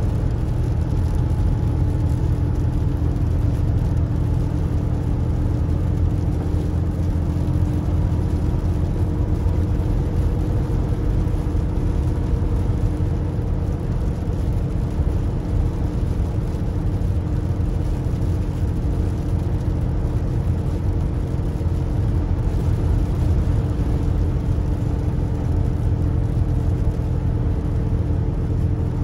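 In-cab sound of a Jayco Seneca Super C motorhome on a Freightliner chassis cruising at highway speed: a steady low rumble of engine and road noise with a constant drivetrain hum over it.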